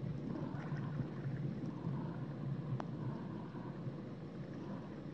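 Muffled underwater ambience picked up by a submerged camera: a steady low wash of water, with a few faint clicks and one sharper click near the middle.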